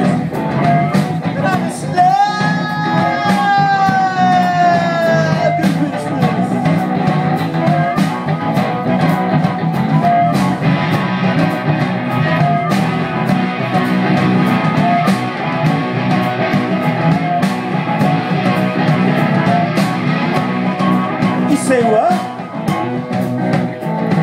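Live blues-rock band playing: electric guitars over a drum kit's steady beat, with a harmonica played into the vocal mic. About two seconds in, the harmonica holds one long note that bends slowly down in pitch.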